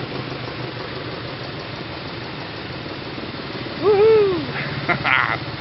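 Steady engine and tyre noise of slow road traffic passing, with a jeepney among the vehicles. About four seconds in, one loud short call rises and falls in pitch, followed a second later by brief voice-like sounds.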